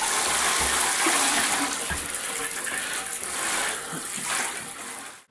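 Water spraying from a handheld shower head onto a raw turkey in a bathtub, splashing off the bird and its tray. It is a steady hiss that eases slightly and then cuts off suddenly near the end.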